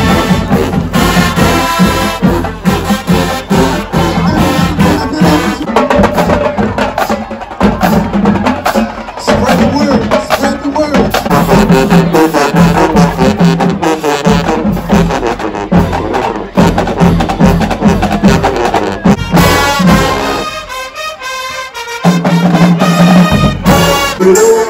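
Marching band playing: brass with sousaphones over a drumline keeping a steady beat. The low brass and drums drop out briefly near the end, then the full band comes back in.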